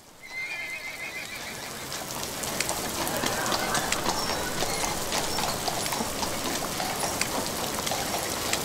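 A horse whinnies briefly as the sound fades in, then a steady hiss of rain grows louder, with scattered sharp clicks of drops.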